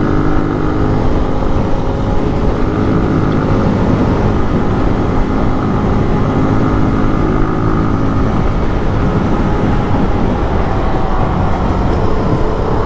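Zontes 155 cc single-cylinder motorcycle engine running steadily while being ridden at cruising speed, with wind noise over the rider's microphone.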